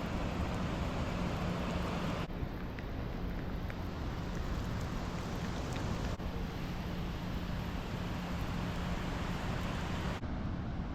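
Waterfall: falling water rushing in a steady, even noise that changes abruptly in tone about two, six and ten seconds in.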